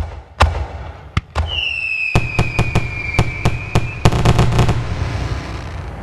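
Fireworks going off: a string of sharp bangs, with a long high whistle from about a second and a half in, then a rapid crackling volley of bangs about four seconds in that dies away.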